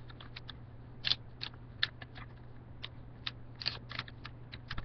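Folded paper being pushed open and creased by hand, making irregular small crackles and crinkles.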